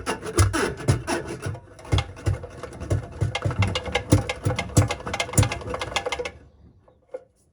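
Drain snake being worked into a clogged drain pipe, its steel cable rattling and scraping with many irregular clicks and knocks, stopping about six seconds in.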